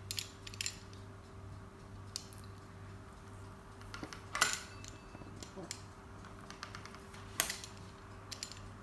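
Pizza-cutter wheel cutting a sheet of puff pastry on a granite countertop: a few scattered light clicks and taps as the wheel meets the stone, the sharpest about four and a half seconds in, over a steady low hum.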